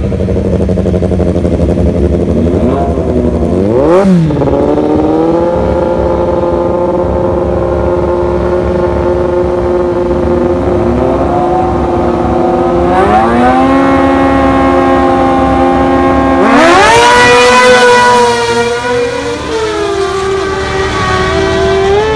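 Superbike engines revving: a quick throttle blip about four seconds in, then revs held steady for several seconds, and a louder surge with climbing revs about sixteen seconds in.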